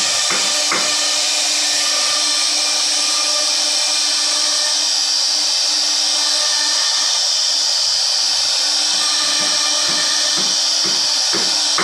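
CNC router spindle running steadily while its bit mills a scroll pattern into a wooden board, a continuous high-pitched whine mixed with cutting noise.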